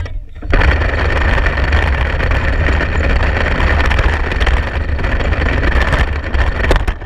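Plastic wheels of a 2019 Hess toy truck rolling fast down a paved driveway: a loud, steady, rough rumble that starts about half a second in and stops abruptly near the end as the truck comes to rest.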